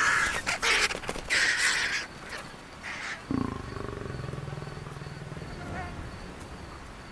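Male lion snarling as he charges vultures off his kill, with a flurry of harsh bursts and flapping as the birds scatter in the first two seconds. About three seconds in a low, rough growl starts and fades away.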